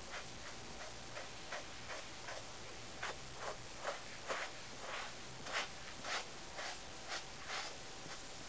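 Grooming brush stroking through a Siamese cat's fur: short swishing strokes, about two or three a second, louder in the middle.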